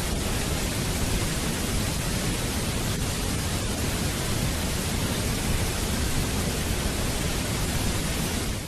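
Waterfall: steady rushing of falling water, an even hiss spread from low to high pitches with no change in level.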